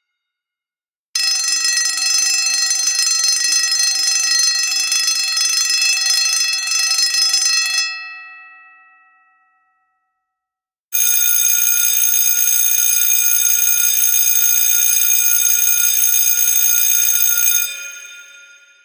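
Electric fire alarm bells ringing continuously in two bursts of about six and a half seconds each. After each burst stops, the gong rings on and fades over a second or two. The second burst is a different-sounding bell from the first.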